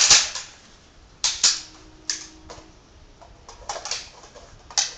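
Metallic clicks and clacks of an INSAS rifle's parts as it is handled, about eight sharp, irregular knocks.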